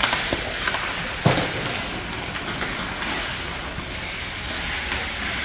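Ice hockey play in an indoor rink: steady noise of skates on the ice and the rink, with a few light stick clicks and one sharp clack about a second in.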